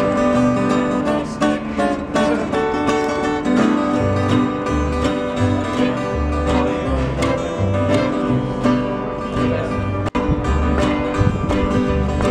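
Acoustic string band playing an instrumental passage in a country/bluegrass style: two acoustic guitars picking and strumming over an upright bass, whose low plucked notes are strong from about four seconds in. The sound cuts out for an instant about ten seconds in.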